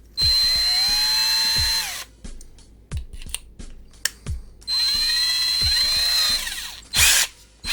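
TOTAL P20S 20 V cordless drill running with no load, triggered twice for about two seconds each time: the motor whine rises as it spins up and falls away as it is released. Light clicks come between the runs, and a short loud rasp sounds near the end.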